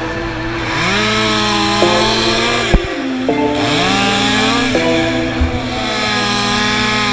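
Stihl MS 500i fuel-injected two-stroke chainsaw revving up to full speed twice, about a second in and again about three and a half seconds in, and running at high speed as it cuts through a sycamore limb. Music plays over it.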